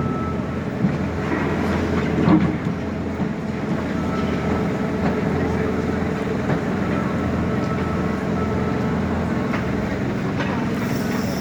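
Heavy demolition machine's diesel engine running steadily, with a few knocks and crunches in the first couple of seconds.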